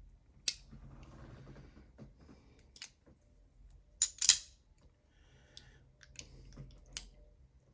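Scattered sharp clicks from a fidget toy being worked by hand, the loudest two close together about four seconds in, with soft handling rustle between. The toy is jammed and won't open.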